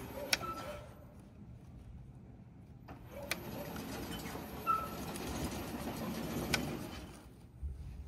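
Low whir of the remote-control tracked mower's electric drive, swelling in the middle and fading near the end, with a few sharp clicks from the levers and switches of the handheld remote.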